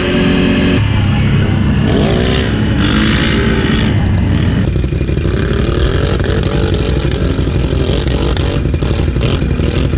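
ATV engines running and revving, their pitch rising and falling again and again. A steady engine note breaks off about a second in.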